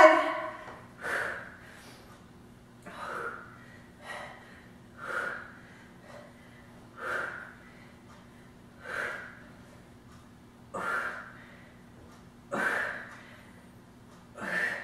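A woman breathing hard through exercise reps: short, sharp exhales about every two seconds, from exertion in a side-plank elbow-to-ground crunch.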